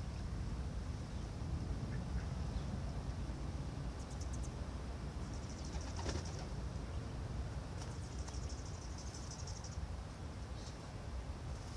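Birds chirping in several short, high trills, over a steady low rumble.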